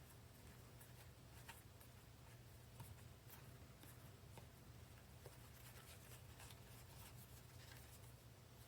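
Near silence: a faint steady low hum, with soft scattered clicks and rustles of trading cards being handled and sorted by hand.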